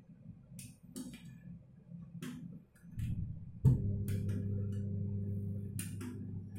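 Kitchen clatter: light clicks and knocks of cookware and utensils handled at the counter. About two-thirds of the way in, a sharp click is followed by a steady electric hum from a kitchen appliance that has just been switched on, and the hum keeps going.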